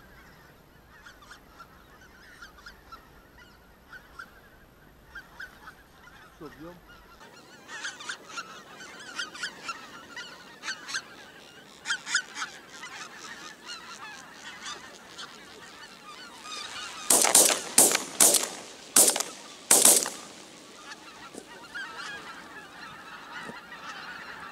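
A large flock of geese honking in flight, many overlapping calls. The calls are faint at first and grow dense and loud after about seven seconds. About three quarters of the way through come five very loud, sharp honks in quick succession.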